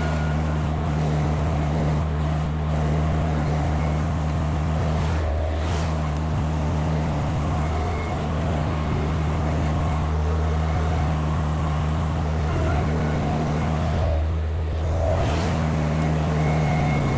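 Derette V1000 mini skid steer's engine running steadily while it moves a trailer on a hitch attachment.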